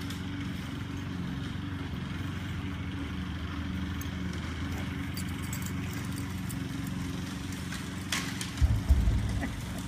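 A motor's steady low drone, with a few loud low thumps near the end.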